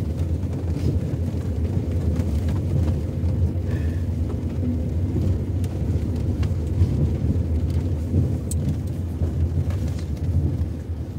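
A car running along the road: a steady low rumble of engine and road noise.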